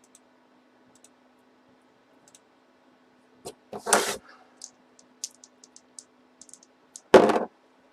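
Light clicks and taps of a computer keyboard and mouse, scattered and irregular, with two louder short noises: one about four seconds in and a louder one near the end.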